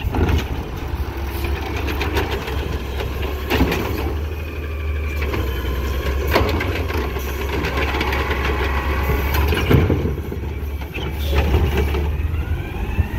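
Garbage truck engine running at a steady low idle, with a few scattered clanks and a whine rising in pitch near the end.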